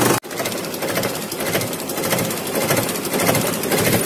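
Red DI tractor's diesel engine running with a steady, rapid clatter.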